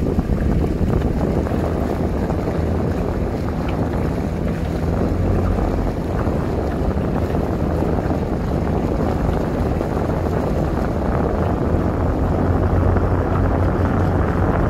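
Steady wind buffeting the microphone over a low rumble and water rush from the moving boat that carries the camera.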